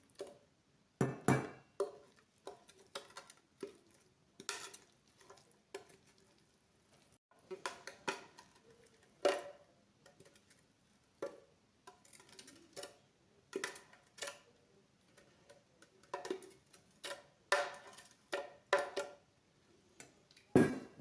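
Scattered, irregular knocks and scrapes of a utensil and blender jar against a pot as blended onion and ginger mash is scooped into it.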